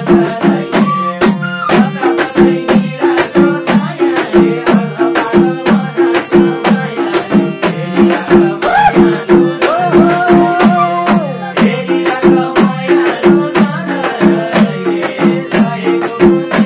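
Instrumental break of Nepali folk dohori music: madal hand drums beat a steady, fast rhythm, with bright jingling clicks on the beats and a melody line wavering above.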